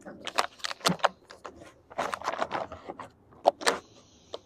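Handling noise: an irregular run of sharp clicks, taps and rustles, loudest about a second in and again near three and a half seconds.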